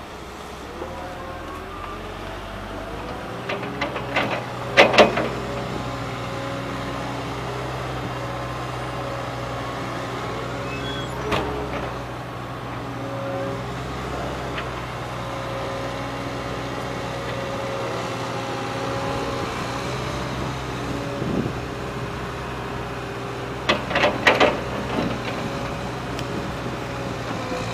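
Caterpillar excavator and MAN tipper truck diesel engines running steadily, with the excavator's engine and hydraulics rising and falling in pitch as it works. Two bursts of clattering knocks, about five seconds in and again near the end, come as the bucket dumps soil into the truck's steel body.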